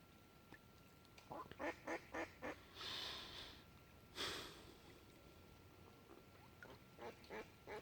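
A duck quacking faintly in short, quick calls: a run of about five, then three more near the end. In between there are two brief rushes of noise, the louder one about four seconds in.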